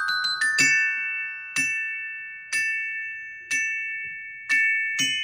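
Glockenspiel played with two mallets: two quick notes, then a chord struck about once a second, each stroke ringing on until the next. The pitch changes near the end.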